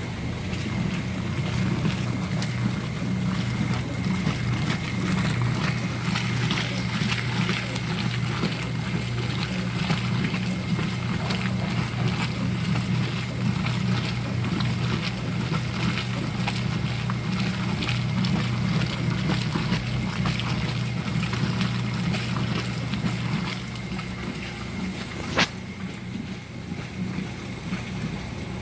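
Brastemp Super Luxo washing machine in its wash cycle: the motor hums steadily while water sloshes and splashes in the tub. The hum eases a little near the end, and there is a single sharp click.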